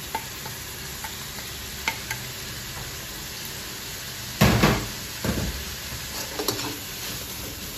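Rice and saffron water sizzling in a hot wok, a steady frying hiss. A few small clicks and one louder clunk about four and a half seconds in.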